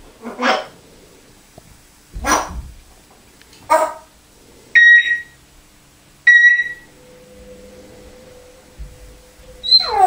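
African grey parrot mimicking a dog's barks: three short barks in the first four seconds, then two loud, short beeps about a second and a half apart, and a falling whine near the end.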